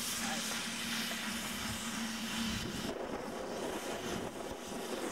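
GWR King class four-cylinder steam locomotive 6024 King Edward I on the move, a steady rushing noise; a low steady hum under it stops about halfway through, and the rushing noise grows fuller after.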